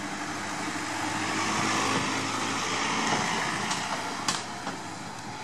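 A Volkswagen Red Cross ambulance van driving past, its engine and tyre noise swelling as it goes by about two seconds in and fading as it drives off, with a brief sharp click near the end. No siren sounds.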